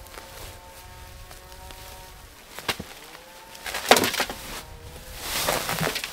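A woven plastic grow sack full of soil and potatoes being lifted into a wheelbarrow and emptied: a knock near the middle, the loudest thump about four seconds in as the sack lands on the barrow, then rustling and soil pouring near the end. A faint steady buzzing hum sits underneath.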